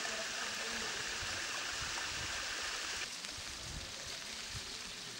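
Rainwater running in a steady rush, the flash-flood runoff of heavy rain. About three seconds in it changes abruptly to a softer, lighter sound of rain and water.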